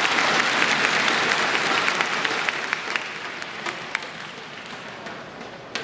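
Spectators in an indoor badminton arena applauding after a point, a dense patter of clapping that fades away after about three seconds. A few sharp clicks follow near the end.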